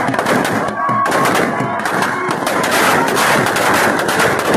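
Firecrackers packed inside a burning Dussehra effigy going off in a rapid, dense string of bangs and crackles, thickening after about a second.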